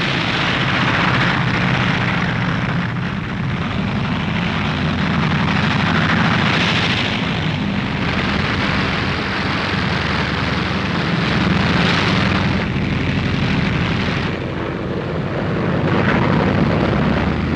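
Propeller aircraft engines droning steadily in flight, a dense, loud and even drone with a rushing noise over it.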